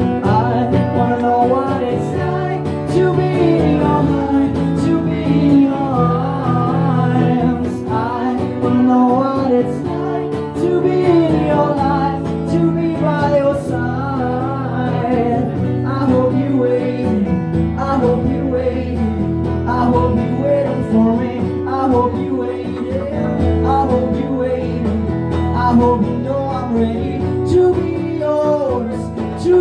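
Live music: an acoustic guitar strummed with a singing voice over it, a steady song throughout.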